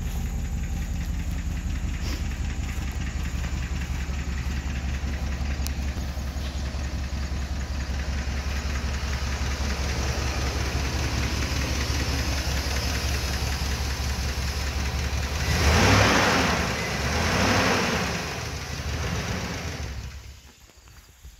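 Chevrolet Silverado 2500 HD's Vortec gas V8 idling steadily, then revved three times in quick blips, each rising and falling, before it is switched off near the end.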